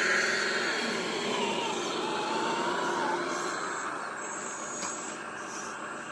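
Heavy earth-moving machine running steadily, with a wavering high whine over the engine noise in the first few seconds.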